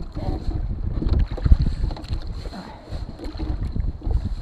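Wind buffeting the microphone over the water noise of a small dinghy being rowed, as an uneven low rumble.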